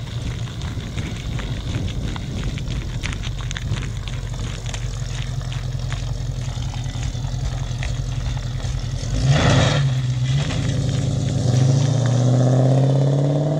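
Holden VK Commodore's 5.0-litre V8 through a loud 3-inch exhaust, heard as the car drives away. It holds a steady note, has a brief loud burst about nine seconds in, then the note climbs as it accelerates near the end.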